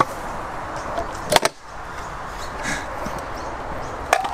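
Stunt scooter wheels rolling over a concrete skatepark bowl, a steady rumble, with a loud sharp clack about a second and a half in, after which the rolling noise briefly drops away, and another clack near the end as the scooter meets the coping.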